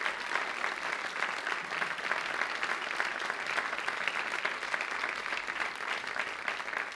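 Theater audience applauding steadily, a dense clatter of many hands clapping, easing off slightly near the end.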